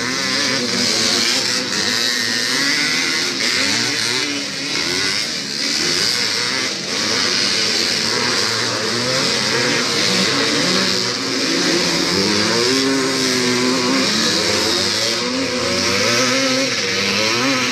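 Several classic motocross motorcycles racing past, their two-stroke engines revving, the pitch rising and falling as riders accelerate and change gear, with more than one engine heard at once.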